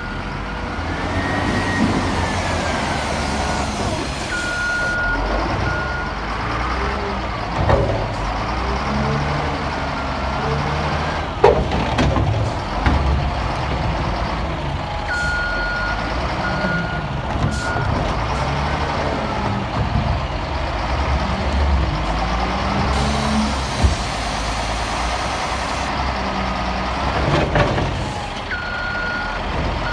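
Diesel engine of a heavy quarry loader running and revving up and down as it lifts a stone block, with a wavering hydraulic whine and a reversing alarm beeping at times. A few sharp clanks stand out, about 8, 11 and 24 seconds in.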